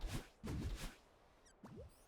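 A dog hiccupping: a quick run of short hiccups in the first second, then a quieter stretch with a brief rising squeak near the end.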